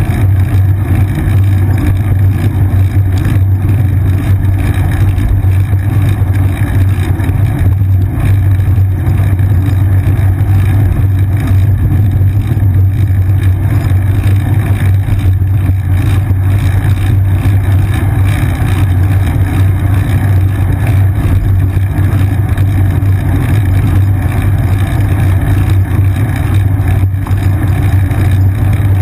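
Steady low rumble of a moving bicycle: road vibration and wind buffeting picked up by a GoPro Hero 2 clamped to the seat. The drone holds unbroken throughout, with no distinct events.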